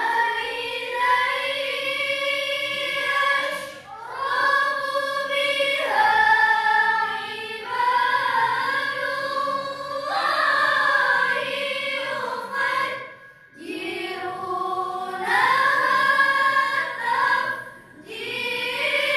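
A group of young women reciting the Qur'an together in the melodic mujawwad style, with long held notes and winding melismas. There are short pauses for breath about four seconds in, about thirteen seconds in, and near the end.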